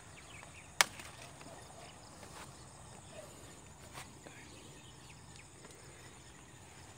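Banana blossom stalk snapping as it is broken off the bunch by hand: one sharp crack a little under a second in, followed by a few faint clicks of handling.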